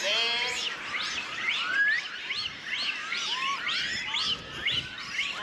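Many Japanese macaques calling at once: a dense chorus of overlapping short, arching coo calls and higher squeaks.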